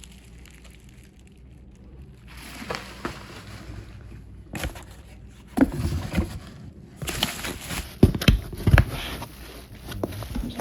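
Unboxing handling noise: packaging rustling, then a run of knocks and thuds as hard items such as battery cells are moved and set down, loudest in the second half.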